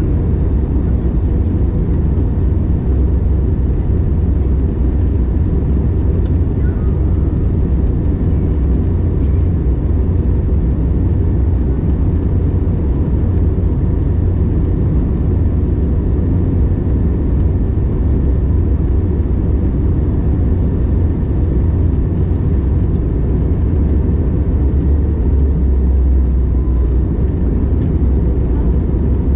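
Airbus A321neo cabin noise: a steady, deep rumble of engines and airflow heard from a passenger seat, even throughout.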